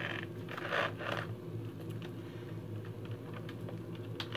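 Small clicks, taps and rustles of a plastic football helmet and its facemask being handled and adjusted on the head, with a short rustle about a second in, over a steady low hum.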